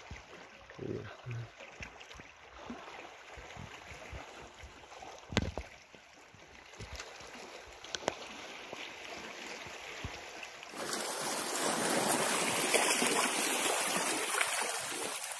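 Seashore ambience: a faint wash with a few small clicks. About eleven seconds in, it steps up suddenly to a louder steady rushing noise.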